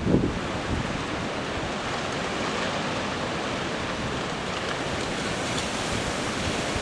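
Steady rush of strong hurricane wind, with wind noise on the microphone.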